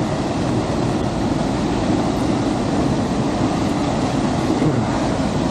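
Aira Force waterfall running high after days of heavy rain: a loud, steady rush of falling water that stays even throughout.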